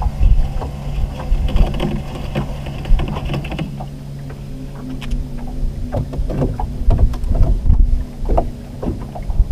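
Boat motor running with a steady low hum at trolling speed, with scattered knocks and clicks from trolling gear being set out.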